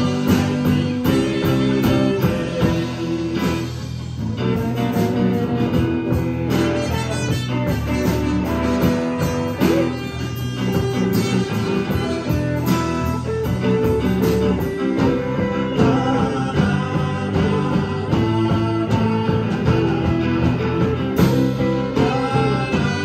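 Rock band playing live: trumpet over two electric guitars, bass guitar and a drum kit.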